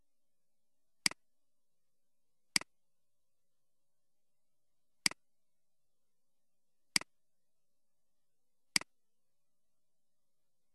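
Five computer mouse button clicks, spaced one to two seconds apart. Each is a sharp press followed at once by a softer release.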